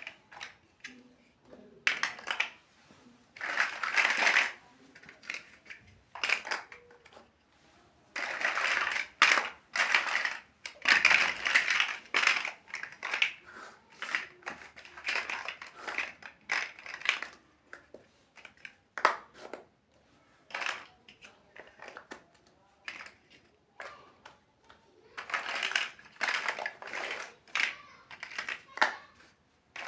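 Plastic building blocks being handled and pressed together: irregular sharp clicks and taps, with stretches of rustling and crinkling from the pieces being sorted and moved about.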